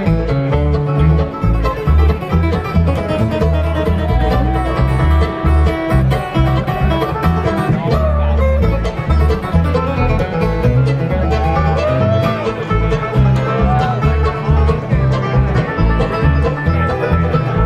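Bluegrass band playing live: acoustic guitar flatpicking with banjo over a steady pulse of low bass notes.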